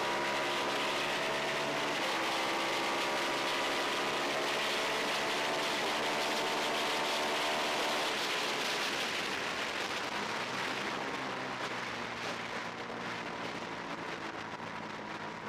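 Onboard sound of a twin-cylinder race motorcycle accelerating hard down a straight, its engine note climbing and then dropping back with each upshift, about two and six seconds in, over a steady rush of wind noise. After about eight seconds the engine note falls away and the sound quietens as the bike leans into the next corner.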